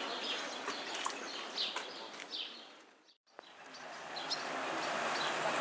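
Outdoor background with birds chirping every half second or so. It fades out to silence about three seconds in, then fades back up to a steady background with a few more chirps.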